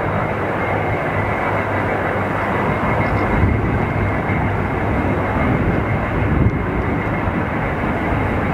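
Sukhoi Su-35's twin turbofan jet engines at full afterburner on the takeoff roll: a loud, steady, rumbling jet noise, with a couple of brief low thumps a few seconds apart.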